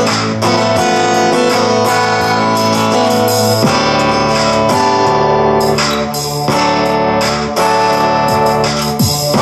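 Music played at a steady, fairly loud level through a home-built low-power tube stereo amplifier, a Dynaco ST-70-style design with a pair of Hammond 1608 output transformers, and its speakers.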